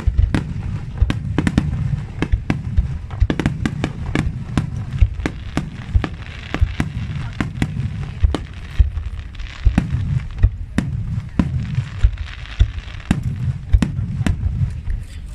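Aerial firework shells bursting in quick succession: a dense run of sharp booms and bangs over a continuous low rumble, with crackling sizzle from glittering stars around the middle.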